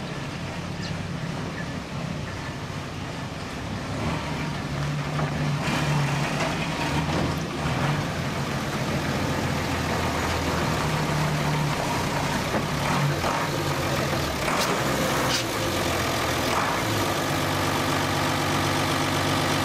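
A large cargo truck's engine running close by at low speed, a steady idling note that gets louder about four to six seconds in.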